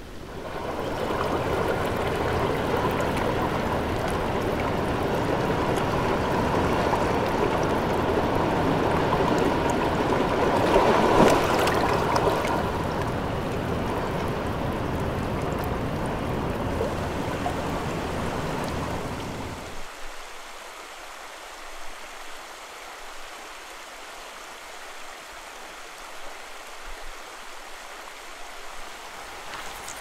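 Flowing river water, a steady rushing and burbling with no voices. About two-thirds of the way through it cuts off abruptly, leaving only a much fainter hiss.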